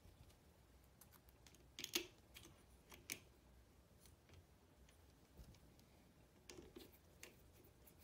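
Faint clicks and light metal taps of cable terminals and a screw being fitted to the terminals of a small motorcycle-type battery. The sharpest clicks come about two and three seconds in, with a few more near the end.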